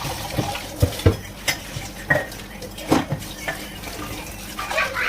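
Tea things being washed up at a sink: cups and a pan clink and knock against each other, several times, over running water.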